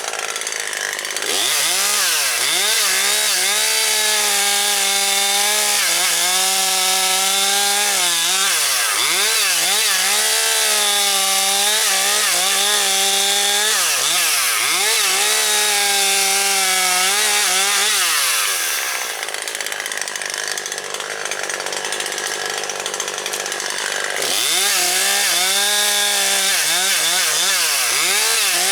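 Husqvarna 540XP Mark III two-stroke chainsaw cutting wood, running at high revs with its pitch dipping and recovering again and again as the chain bites. About 18 seconds in it drops back for several seconds, then revs up and cuts again.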